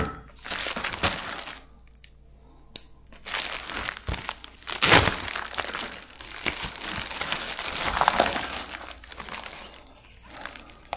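Plastic packaging crinkling and rustling as bagged battery cables and parts are lifted out of a box and handled. There is a short burst first, then after a pause a long spell of nearly continuous crackly crinkling.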